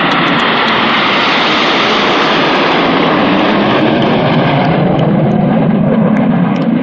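Loud jet noise from the Red Arrows' BAE Hawk jets flying over: a steady rush whose higher part fades from about four seconds in while a deeper rumble grows, as the aircraft pass and move away.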